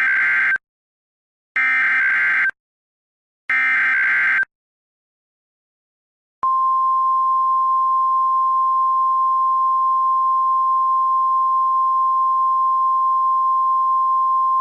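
NOAA Weather Radio Emergency Alert System test signal: three short bursts of the SAME digital header data, evenly spaced about a second apart, then after about two seconds of silence the steady single-pitch 1050 Hz weather radio warning alarm tone starts and holds. It is the station's routine weekly test of its alerting system.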